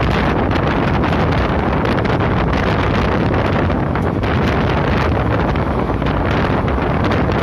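Heavy wind buffeting a phone microphone held out of a fast-moving express train coach, over the steady running rumble of the train on the track.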